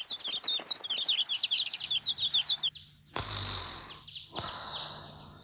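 Small birds chirping in quick, short falling notes for about three seconds, then a quieter steady hiss.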